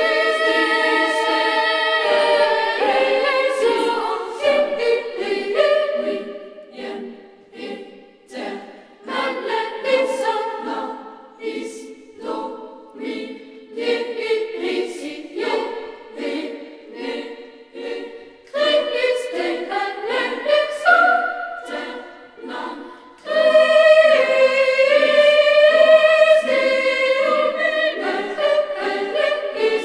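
Background choral music: a choir singing in short phrases, swelling into a louder sustained passage about two-thirds of the way through.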